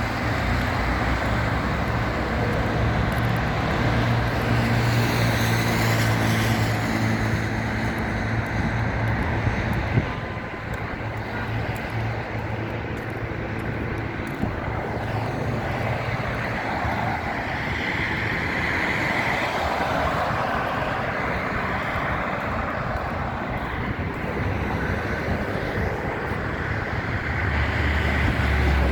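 Steady motor vehicle and road traffic noise with a low engine hum. A single sharp knock comes about ten seconds in.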